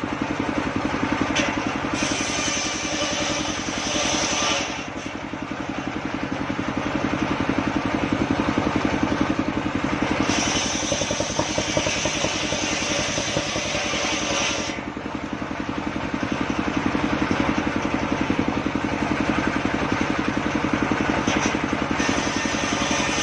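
Homemade engine-driven circular saw running steadily while its blade rips through sengon wood. A high whine comes and goes several times, and the sound swells louder as the blade works through the cut.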